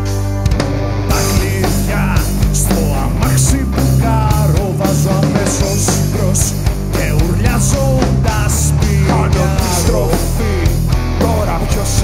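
Live metal band playing: distorted electric guitars, bass and drums, with the full band coming in louder about a second in.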